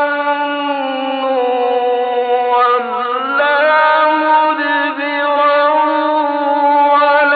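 A solo male voice chanting the Quran in melodic tajweed style, holding long drawn-out notes; the pitch dips about three seconds in, then rises and holds again.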